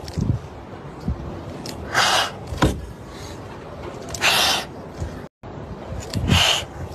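Frightened kittens hissing three times, short breathy hisses about two seconds apart, a defensive warning.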